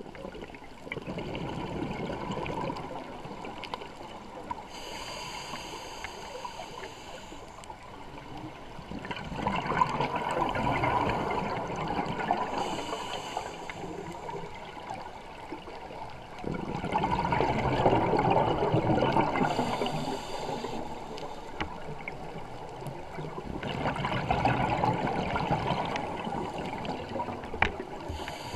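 Scuba diver's regulator breathing underwater, in slow, regular breaths about every seven seconds: a thin hiss as air is drawn in, then a longer, louder rush of gurgling exhaled bubbles.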